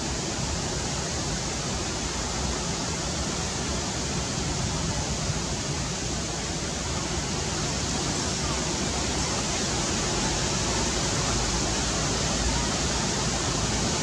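Steady, even hiss of noise with no distinct events, growing slightly louder in the second half.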